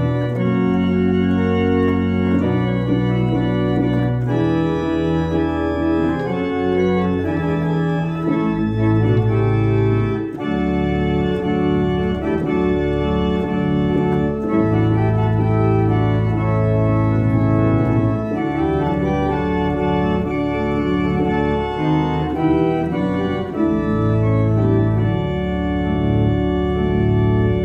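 Two-manual church organ playing a hymn in full, sustained chords over deep bass notes, the harmony changing every second or two.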